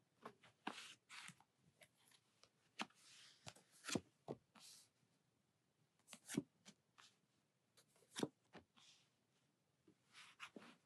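Faint handling of a tarot deck: cards slid off the deck and laid down on a cloth, with scattered light taps and short swishes.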